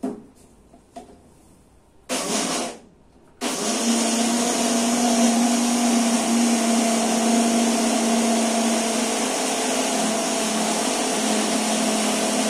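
Small electric mixer-grinder (mixie) crushing soaked peanuts with a little water to make peanut milk. A knock at the very start, then a short pulse of the motor about two seconds in, then the motor runs steadily from about three and a half seconds on with a constant hum.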